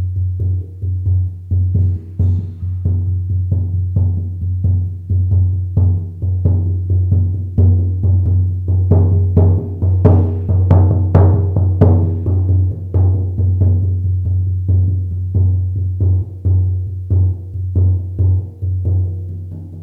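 A 50 cm shaman frame drum beaten in a steady run of strikes, two or three a second. Each strike rings into a deep, sustained boom, and the beats grow louder around the middle.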